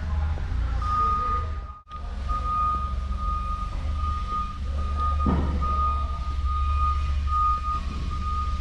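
A steady high-pitched electronic beeping tone, broken into uneven pieces, over a continuous low rumble. A brief thump is heard about five seconds in.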